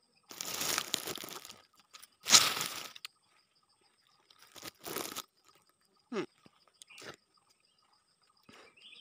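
Crunching close to the microphone, as of someone biting and chewing something crisp, in three bursts over the first five seconds, the second the loudest. A faint steady high insect trill runs behind.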